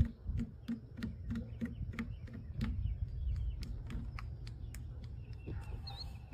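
A rapid, even series of sharp clicks, about three a second, stopping about four and a half seconds in, over a steady low rumble; a short high chirp near the end.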